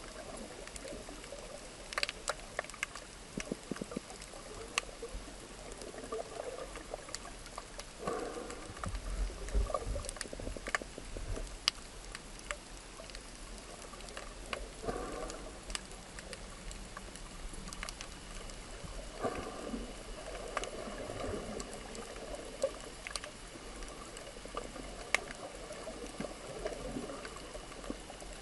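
Underwater ambience heard by a submerged camera: a steady muffled wash of water with scattered sharp clicks, and a louder swish of moving water every few seconds.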